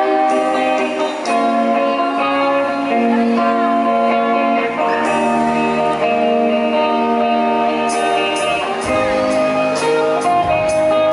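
Live rock band playing with electric guitars, bass guitar and drums, with drum and cymbal hits coming in strongly about eight seconds in.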